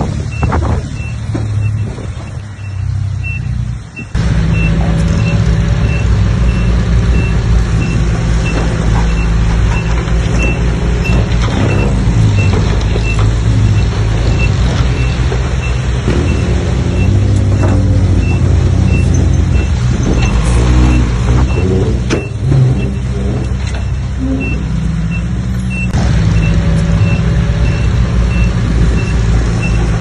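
Heavy diesel earthmoving machinery running under load, its engine a deep steady rumble. About four seconds in the sound jumps louder, and a reversing alarm starts beeping about twice a second and carries on.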